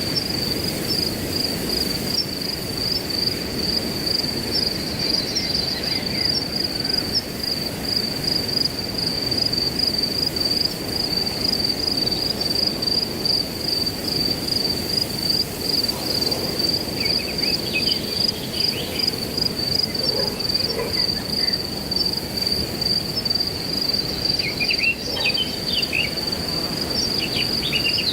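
Crickets chirping in a steady, high, rapidly pulsing trill over the rush of wind through grass. A few short bird chirps come in about two-thirds of the way through and again near the end.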